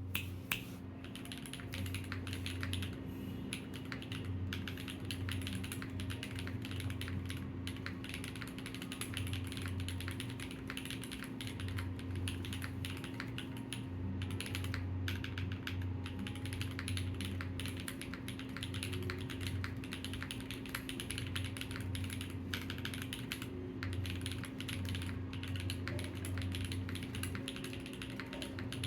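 Continuous fast typing on a computer keyboard, a dense run of key clicks with a few brief pauses. A steady low hum runs underneath.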